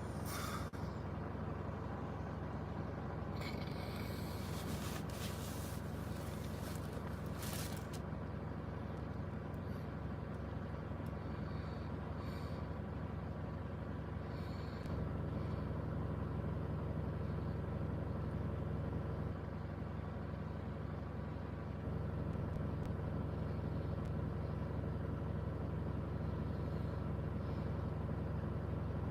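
Vehicle engine idling steadily with a low hum, a few short hisses in the first several seconds, and a slight rise in level about halfway through.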